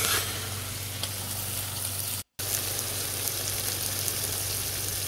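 Lamb, potato and tomato curry sizzling steadily in a frying pan, stirred at first, over a steady low hum. The sound drops out for an instant about two seconds in, then the sizzling carries on.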